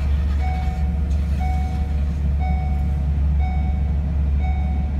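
Steady low engine rumble of vehicles idling on a river ferry deck, with a short electronic beep about once a second.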